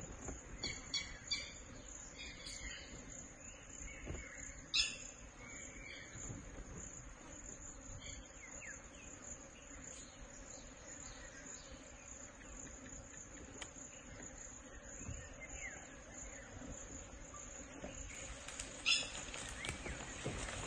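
Forest ambience: a steady high-pitched insect drone, with short bird chirps now and then, the loudest about five seconds in and again near the end.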